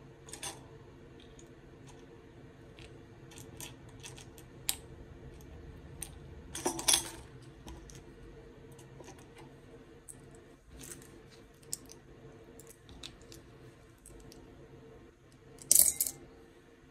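Press-on nails dropped into a glass jar, a scatter of small sharp clicks and clinks against the glass, with louder clatters about seven seconds in and near the end.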